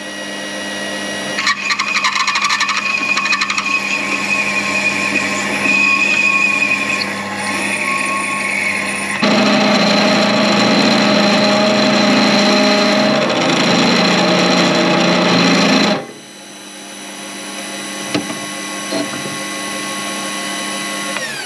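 Mini metal lathe running while a twist drill in the tailstock chuck drills out a metal workpiece: a steady motor whine with cutting noise from the drill. The sound changes abruptly in pitch and loudness about 1.5, 9 and 16 seconds in, as the work steps up through larger drill bits.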